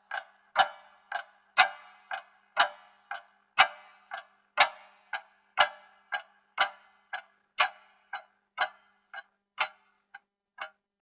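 Clock ticking, about two ticks a second, with strokes alternating louder and softer in a tick-tock pattern and a slight ring after each. The ticks grow fainter near the end and stop.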